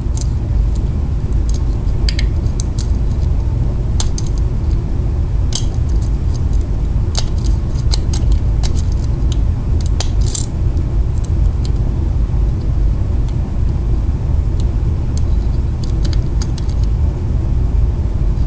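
Small sharp metallic clicks and ticks of a lock pick and tension wrench working the pin stack of a mailbox cam lock during single-pin picking, scattered irregularly about a second apart, over a steady low rumble.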